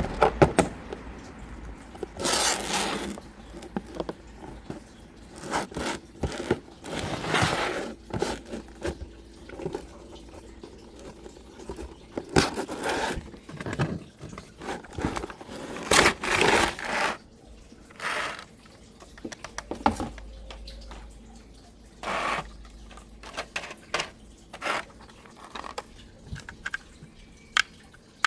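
Irregular scraping, crinkling and tearing of packaging being handled and opened, in short separate bursts.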